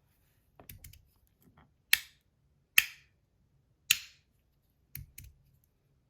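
Stainless-steel Rapt magnetic fidget slider, fitted with plastic inserts and strong 4x2 magnets, snapping from one position to the next: three sharp, loud clacks about a second apart, with fainter clicks around them.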